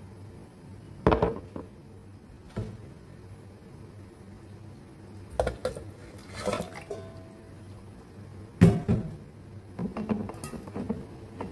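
Kitchen clatter as glass seasoning jars and a stainless steel pot are handled on a counter: a handful of separate knocks and clinks, the loudest about three-quarters of the way through, with a quick run of smaller clinks near the end.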